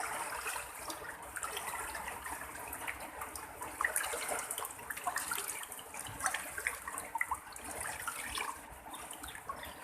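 Floodwater rushing and splashing: a steady wash of running water with many small splashes.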